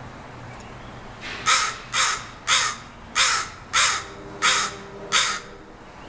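Seven loud, harsh bird calls in a steady series, about one every two-thirds of a second, beginning about a second and a half in.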